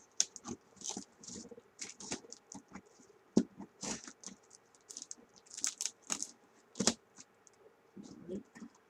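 Packaging being handled as a shipping box is opened: irregular rustles and scrapes with light clicks, and two sharper knocks, one at about three and a half seconds and one at about seven seconds.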